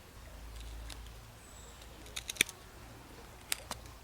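A few sharp clicks and snaps of a knife cutting a notch into a soft yucca hearth board, over a low rumble. The loudest click comes a little past halfway.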